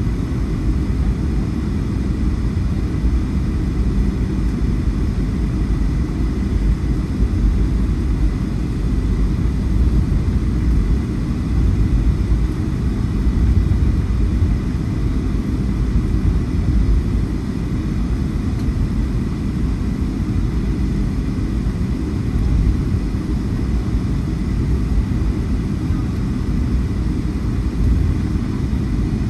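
Steady low rumble of a Boeing 757-300's Rolls-Royce RB211 turbofan engines running at an even power, with a faint steady high whine over it.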